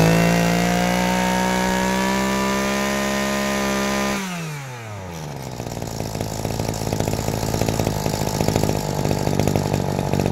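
Maruyama BCS26CSN brush cutter's small two-stroke engine held at high revs for about four seconds, then dropping back to a steady idle.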